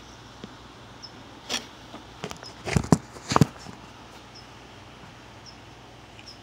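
Knocks and rustles from a bent steel bar wrapped in suede pads being handled, in a cluster that peaks about three seconds in. A faint high chirp repeats about once a second.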